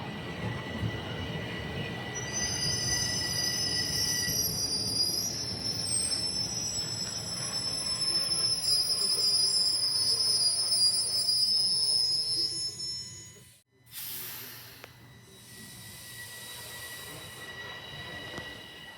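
TTC train's steel wheels squealing on the rails over a running rumble, several high squealing tones from about two seconds in until about twelve seconds. After a sudden brief dropout, quieter train running noise follows.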